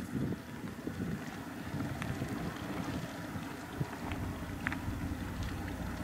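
Wind noise on the microphone: a steady low rush, with a few faint clicks.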